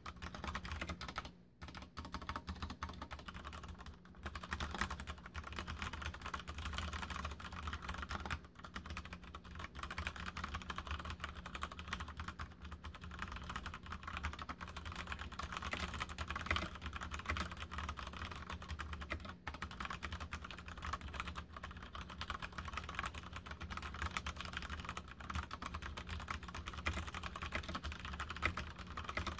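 Mstone Groove87 mechanical keyboard with brown tactile switches typed on continuously at a quick, even pace: a dense run of keystroke clacks, broken by a few short pauses.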